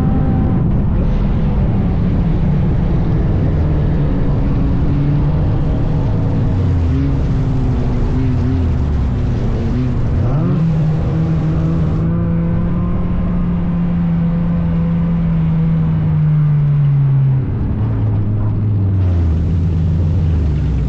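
Chevy Cobalt dirt-track race car's four-cylinder engine running hard. Its pitch climbs about halfway through as it accelerates, holds high for several seconds, then drops in steps as the throttle comes off, over a constant rumble.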